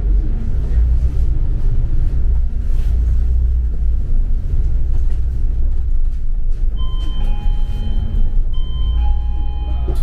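Double-decker bus running, a steady low rumble inside the cabin. In the last three seconds a few steady electronic tones sound, break off, and start again.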